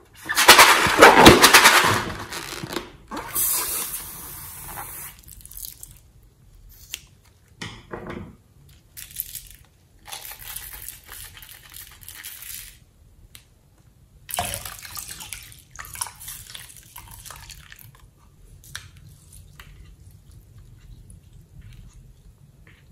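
Wet, sticky handling sounds of glittery slime being worked in a glass bowl: a loud rough burst of about two seconds near the start, then quieter scattered squelches and clicks, with a louder one about halfway through.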